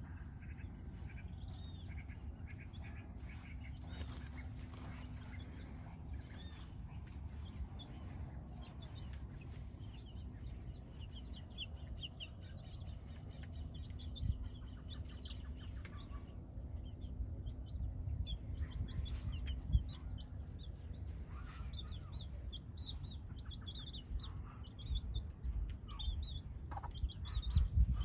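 Chickens clucking, with many short, high chirps of birds that come thickest in the second half, over a steady low rumble.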